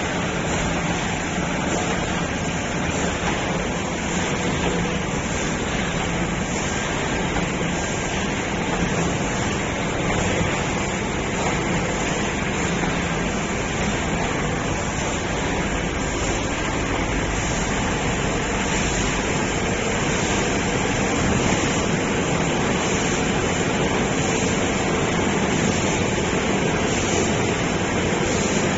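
ZFM-1080KC automatic film laminating machine running: a steady, even mechanical noise, with a faint high beat repeating about once a second.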